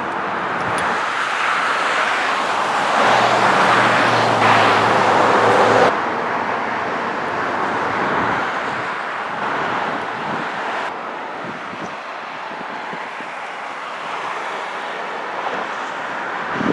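Road traffic noise: a steady rushing hiss of tyres and engines, with a motor vehicle's low hum loudest for a few seconds that cuts off abruptly about six seconds in, leaving a quieter steady hiss.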